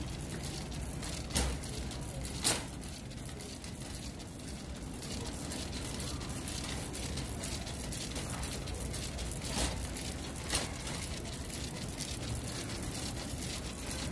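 Steady background hum of a large store, with four short sharp knocks: two in the first few seconds and two more about ten seconds in.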